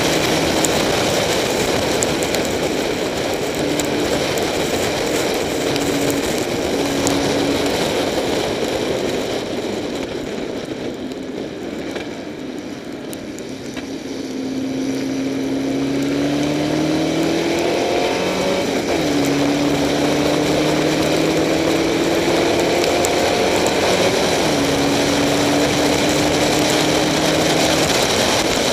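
Spec Racer Ford's four-cylinder engine heard onboard under a heavy hiss of wind and rain spray. It eases off and goes quieter around the middle, then climbs steadily in pitch, drops twice as it shifts up, and holds steady near the end.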